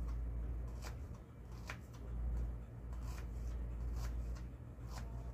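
Kitchen knife slicing an onion on a plastic cutting board: a handful of short, irregular cuts and taps of the blade on the board, over a low steady hum.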